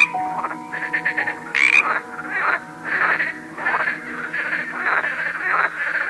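Frogs croaking in short raspy calls, repeating about once or twice a second, over soft background music with long held notes.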